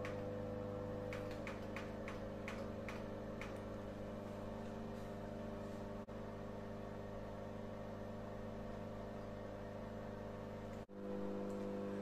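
Built-in microwave oven running while heating a litre of water: a steady electrical hum that drops out briefly twice, about halfway and near the end. A few faint ticks come in the first few seconds.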